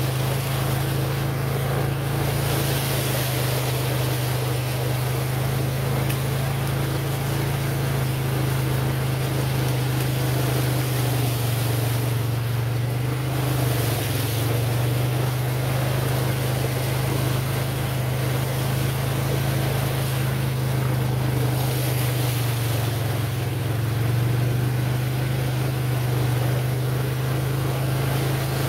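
ATV engine running at a steady speed, its note dipping briefly twice as it eases off, under a constant rushing noise from wind and water.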